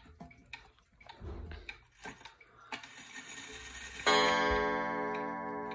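31-day wall regulator clock ticking while its minute hand is turned to the hour, then about four seconds in it strikes once for one o'clock, a loud note that rings on and slowly fades.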